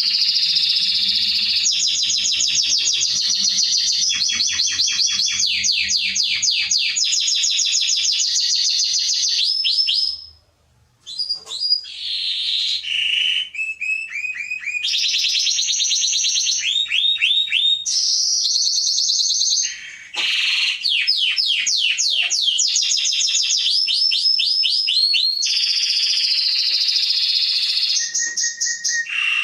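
Domestic canary singing a long, continuous song of rapid trills and repeated whistled notes, high-pitched, with a pause of about a second partway through.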